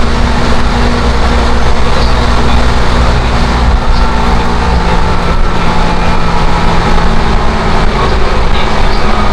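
Seibu 10000 series Red Arrow limited express running at speed, heard inside the passenger cabin: a loud, steady rumble with a low drone and a few held tones.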